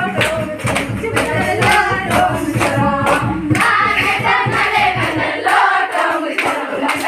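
A group of girls singing together, with rhythmic hand clapping on a steady beat.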